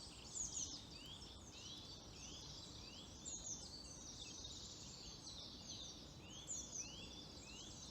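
Wild songbirds singing in chorus, faint: runs of short, quickly repeated rising notes mixed with twittering.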